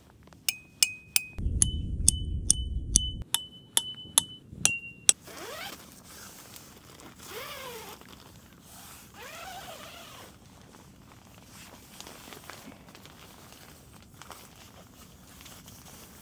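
Metal tent-stake hammer driving a metal tent stake into the ground: about eleven sharp strikes in quick succession over the first five seconds, each ringing briefly at a high pitch, with a low rumble under the middle strikes.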